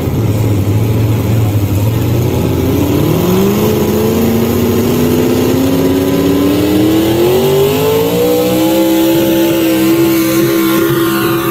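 Competition pulling tractor's engine under full load during a hook down the track. The revs sit low for the first few seconds, climb steadily in pitch for about five seconds, then hold high near the end.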